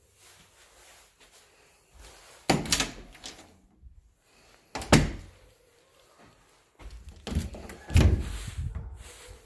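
Doors being opened and shut, with three loud thuds about two and a half, five and eight seconds in.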